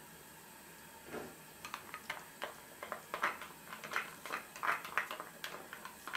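Broth with quinoa boiling in a pot: irregular quick pops and blips of bubbles bursting at the surface, starting about a second in.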